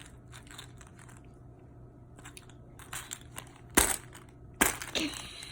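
Plastic Easter egg being squeezed and handled, with faint crackling, then two sharp plastic clacks a little under a second apart near the end; the egg is a tough one that won't open.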